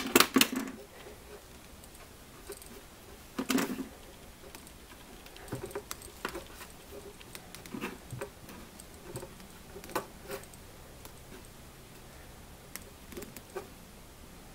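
Scattered light metallic clicks and taps as a hose clamp is handled and worked onto a rubber hose end, with a screwdriver clattering onto a steel workbench at the start; a few louder knocks stand out among the small ticks.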